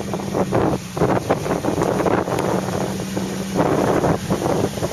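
Wind buffeting the microphone in uneven gusts, with a steady low hum underneath that stops about three and a half seconds in.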